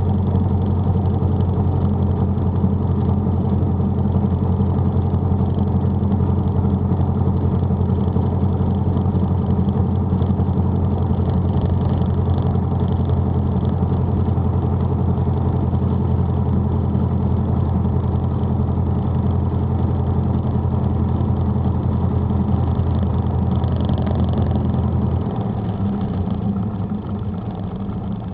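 A light single-engine piston airplane's engine and propeller running steadily at low power, heard inside the cockpit. Near the end the engine note drops and gets a little quieter.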